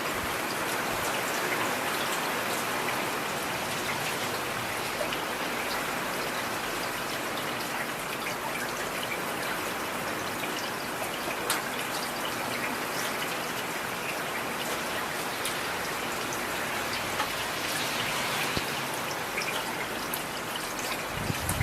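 Heavy rain falling steadily, with scattered sharper drop hits standing out from the dense patter.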